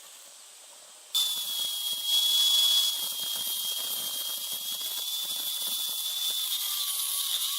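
A small high-speed electric motor starts abruptly about a second in and runs with a steady high-pitched whine and hiss, briefly louder a second later.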